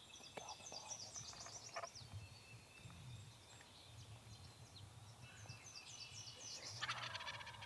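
Wild turkey gobbler gobbling once near the end, a quick rattling call and the loudest sound. Under it, small songbirds chirp and trill in a spring dawn chorus.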